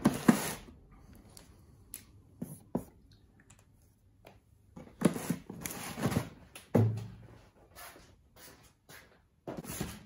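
Cardboard boxes being handled, sliding and scraping across a wooden tabletop, with a few sharp knocks and a dull thump a little before seven seconds in.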